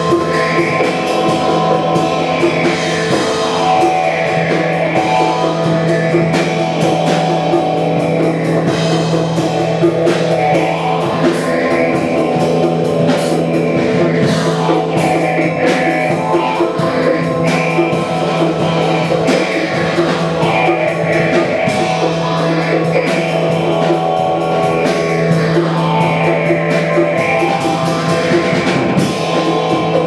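Live band playing rock music on electric guitar, drum kit and electronic keyboard, over a held low note, with a swooshing sweep that rises and falls every few seconds.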